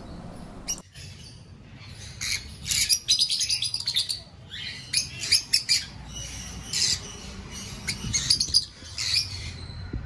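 Caged lutino peach-faced lovebirds chirping. Clusters of short, high-pitched chirps and squeaks start about two seconds in and come in bursts to near the end.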